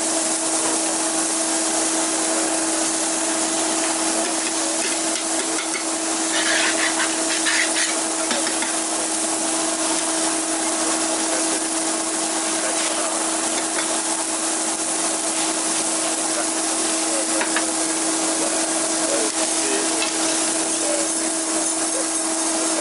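Pasta sizzling in a hot pan, a steady hiss over a constant low hum, with a few clinks and scrapes of utensils about seven seconds in.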